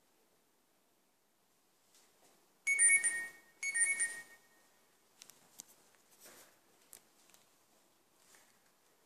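Two short, high electronic alert tones about a second apart, each with two pitches sounding together, followed by a few faint clicks.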